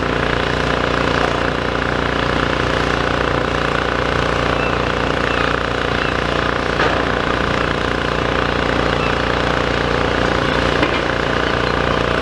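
Demolition excavator's diesel engine running steadily as it works, with a couple of faint knocks.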